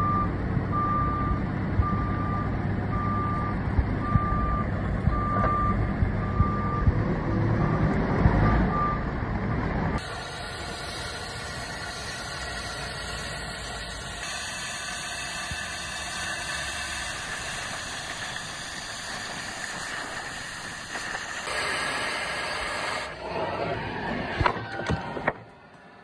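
A telehandler's backup alarm beeps steadily over its running engine as the machine reverses, stopping about nine seconds in. After that comes the steady hiss of an oxy-fuel cutting torch working on steel.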